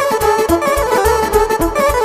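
Band music: a melody over a fast, steady beat, with bass notes pulsing about four times a second.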